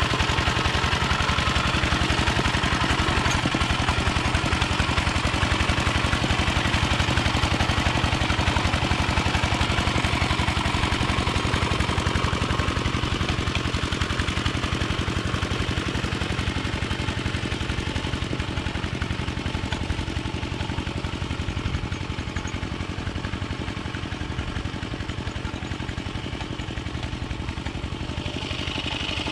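Yanmar two-wheel hand tractor's single-cylinder diesel engine running steadily under load as it harrows a flooded rice paddy, with a fast, even chugging. It grows a little fainter in the second half as the tractor moves away.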